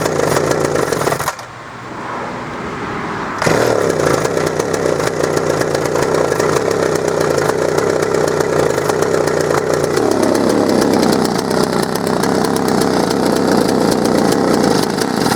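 Homelite 350's two-stroke chainsaw engine catching and running. It falls away a little over a second in, picks up again at about three and a half seconds and keeps running, dropping somewhat in pitch around ten seconds. It is the old saw's first real run since a new fuel line cleared a blocked fuel supply.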